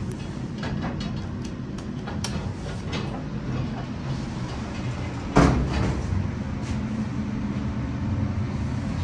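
Northern traction elevator's car doors sliding shut and meeting with a loud thud about five seconds in, over the steady low hum of the elevator. A few light clicks come in the first three seconds as floor buttons are pressed.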